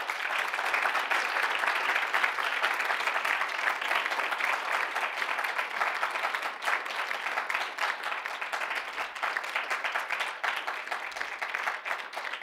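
Audience applauding: a dense patter of many hands clapping that thins slightly toward the end.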